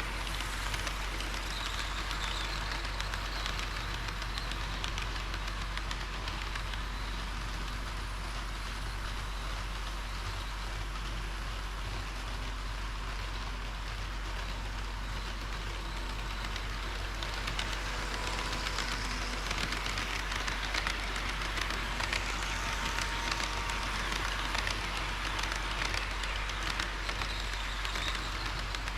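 HO-scale model trains running on a layout's track: a steady rolling hiss of wheels on rail and small motors over a constant low hum, growing a little louder in the second half.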